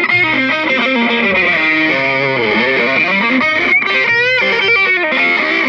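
Distorted electric guitar playing a quick lead lick, with bent, wavering notes about four seconds in.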